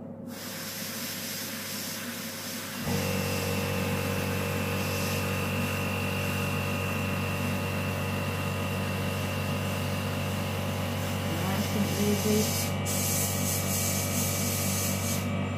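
Airbrush spraying black paint with a steady hiss of air, broken briefly near the end. About three seconds in, the small airbrush compressor's motor switches on and runs with a steady hum, cutting off just before the end.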